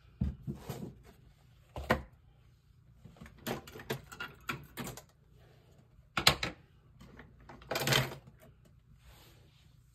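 Irregular clicks and knocks of small objects being handled, with brief rustling, the sharpest knocks a little past halfway and again about two seconds later.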